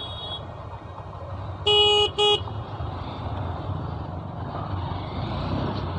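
Two short blasts of a vehicle horn, about two seconds in, over a steady low rumble of engines and traffic.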